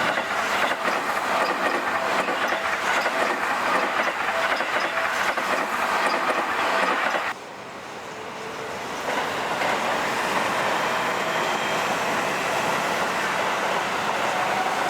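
Seibu Railway electric commuter train running past, wheels clattering over the rail joints. The noise cuts off suddenly about seven seconds in, then train running noise builds up again and runs steadily.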